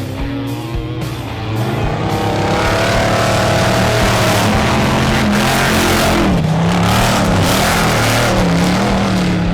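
Off-road race vehicle engine revving, its pitch rising and falling, with music playing over it.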